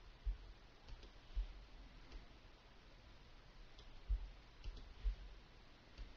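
Computer mouse clicking faintly as points of a path are placed with Photoshop's pen tool: about eight irregularly spaced clicks, each with a dull low thud.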